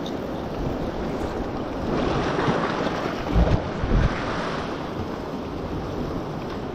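Sea swell washing and breaking against rocks, with wind buffeting the microphone. The wash swells about two seconds in, and two low thumps come at about three and a half and four seconds.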